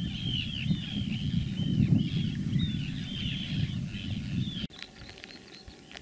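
Birds calling rapidly in clear, arched notes, several a second and overlapping, over a low wind rumble outdoors. Both stop abruptly about two-thirds of the way through, leaving a quieter background with a few faint clicks.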